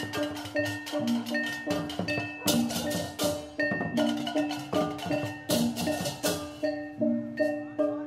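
Rhythmic percussion music: tuned struck notes repeat in a steady pattern over sharp drum and click hits, about two strong beats a second. The high clicks drop away near the end.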